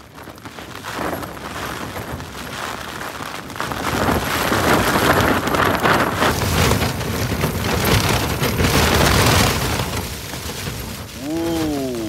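A big gale-force gust hitting a Hilleberg Soulo tent and shaking its fabric. It builds about four seconds in, stays loud for several seconds, then eases near the end. A man's "whoa" comes right at the close.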